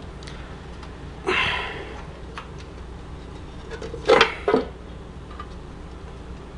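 The back case of a Bell & Howell Super 8 film projector being worked loose and lifted off by hand. A short scrape comes a little over a second in, then a few light clicks, and a quick cluster of clacks and knocks around four seconds in as the case comes free of the chassis.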